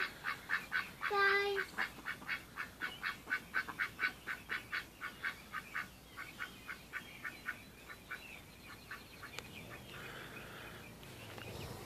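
Domestic ducks quacking in a fast run of short calls, about four or five a second, with one longer call about a second in; the quacking fades away over the last few seconds.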